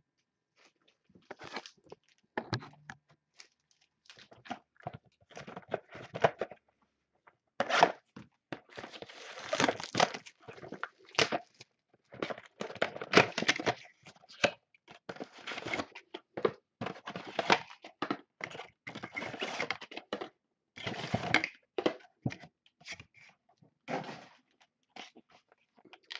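Plastic wrapping and sealed trading-card packs crinkling and tearing as a card box is unwrapped and its packs handled: irregular bursts of crinkling with short pauses, starting about a second in.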